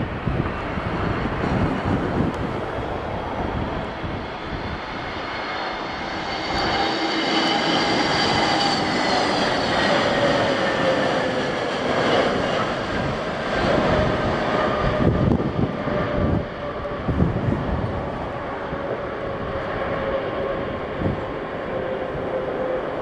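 Airbus A321neo jet engines passing the microphone as the airliner lands, a steady roar with whining tones that slide down in pitch as it goes by. Gusty wind buffets the microphone throughout.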